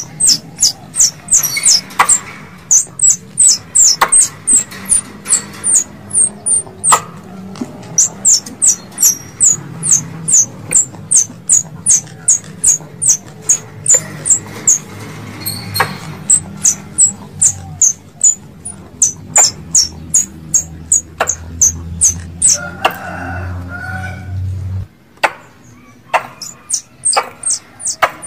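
Recorded squirrel call used as a hunting lure: long runs of sharp, high-pitched chips, each dropping in pitch, about three a second, broken by short pauses. A low steady hum lies underneath and stops near the end.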